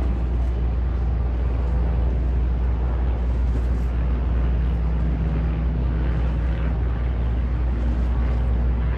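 The MS Sonoma ferry's diesel engines running with a steady low drone, water splashing from the hull's discharge outlets.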